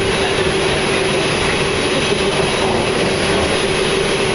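New York subway train running, heard from inside the car: a steady noise of the moving train with a single steady hum through it.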